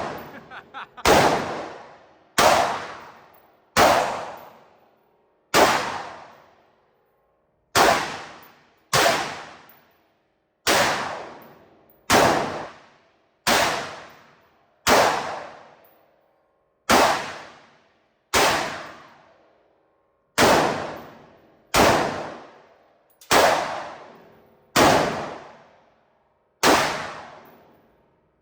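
AR-15 rifle fired shot by shot at a steady semi-automatic pace, about seventeen sharp shots roughly a second and a half apart, each trailing off over about a second.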